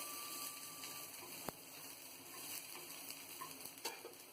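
Chopped garlic sizzling faintly in hot olive oil in a pan, with a couple of light clicks.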